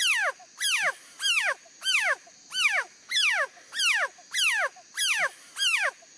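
A frog calling over and over, about ten calls evenly spaced at well over one a second. Each call is a short note that drops quickly in pitch.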